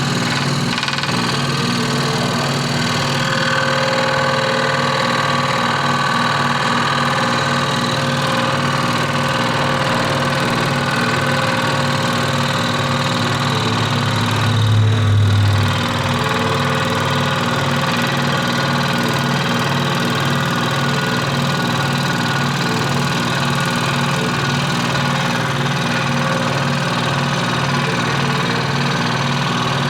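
Scroll saw running steadily, a continuous machine sound with an even pulsing beat, swelling into a louder low hum for about a second halfway through.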